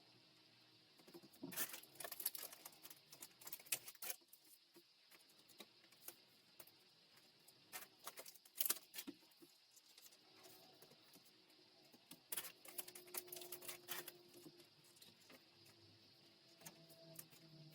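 Faint rustling and small clicks from plastic photocard sleeves and cards being handled, in three short spells.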